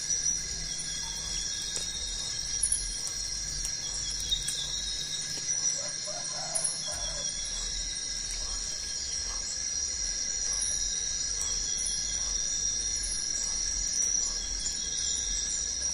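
Tropical forest ambience: a steady, high-pitched insect drone with short bird calls over it, and one lower call about six seconds in.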